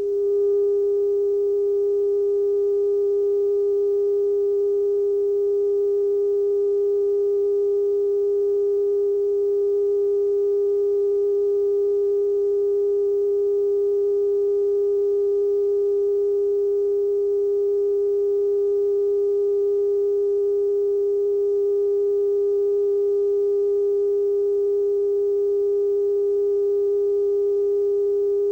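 Television station test tone after sign-off: one steady, unbroken mid-pitched tone with faint overtones.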